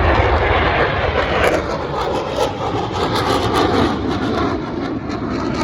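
Roar of USAF Thunderbirds F-16 jet engines flying past, with a pitch that falls slowly through the second half as the jets go by.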